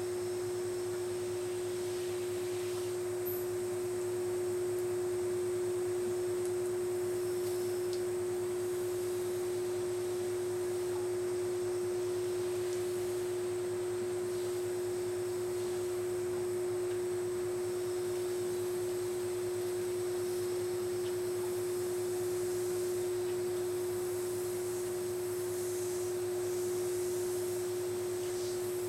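A steady single-pitched hum, unchanging throughout, over faint background hiss.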